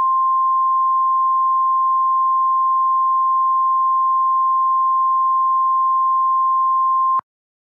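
Emergency Alert System attention tone: a single loud, steady pure-pitched beep held for about seven seconds, then cutting off suddenly with a click. It marks that an emergency alert message is about to be read.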